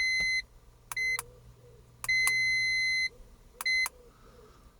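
Electronic beeps of one high tone, in a long, short, long, short pattern: the first long beep stops just after the start and the second lasts about a second, each followed by a short beep.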